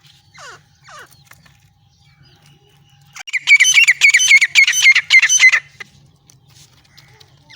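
Francolin (teetar) calling: a loud, rapid run of shrill repeated notes lasting a little over two seconds, starting about three seconds in, after a few faint falling squeals, over a faint low hum.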